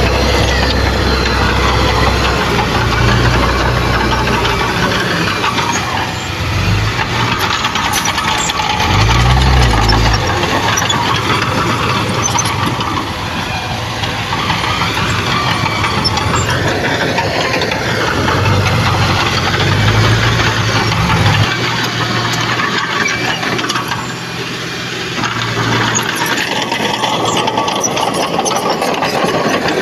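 Bulldozer's diesel engine working under changing load, its note swelling and easing several times and dropping back about two-thirds of the way through, over the continuous clatter and squeal of its steel tracks.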